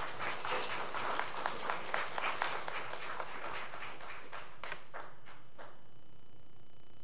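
Audience applauding, with dense clapping that thins out about five seconds in to a few last scattered claps, then stops.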